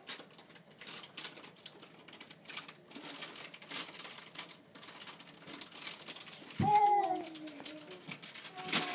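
A baby's voice: one drawn-out babble about seven seconds in that falls slightly in pitch, and a short one near the end, over a run of faint irregular clicks and taps.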